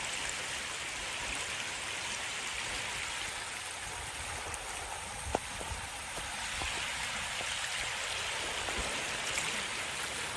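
Steady rush of flowing river water, with one faint click about five seconds in.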